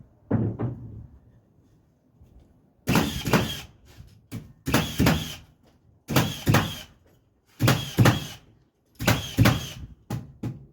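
Nails being driven into framing lumber to fasten jack studs laid flat: a low thump near the start, then sharp, loud strikes in quick groups of two or three, about one group every second and a half from about three seconds in.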